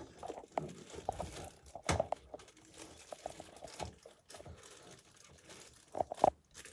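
Handling noises from fitting a computer component, still in its protective plastic, into a PC case: plastic crinkling with scattered clicks and knocks, the loudest knocks about two seconds in and near the end.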